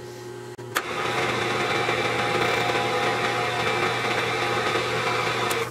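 Bridgeport milling machine running steadily with its spindle turning. The sound starts suddenly with a click about a second in, over a faint hum before it.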